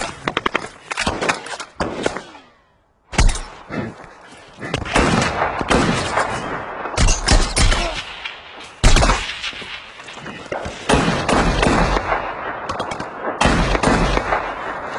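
Movie firefight sound: volleys of rapid rifle fire and bullet impacts, with several heavy low thuds through the rest. The sound cuts out completely for about half a second, roughly two and a half seconds in, then comes back with a hard hit.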